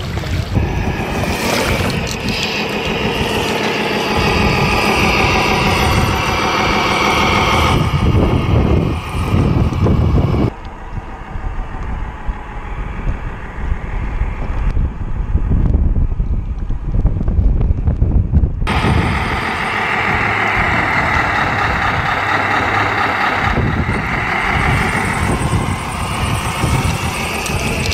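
Electric drivetrain of a 6x6 RC semi truck whining, its pitch wavering with the throttle, over wind on the microphone. For several seconds in the middle the sound turns muffled and low, wind and water heard from a camera on the RC jet boat.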